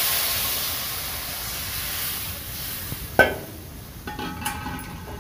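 Kadhi batter of besan and yogurt poured into hot oil with cumin seeds and dried red chillies in a wok, sizzling loudly and fading as the batter settles. A sharp knock about three seconds in, then a few light metallic clinks.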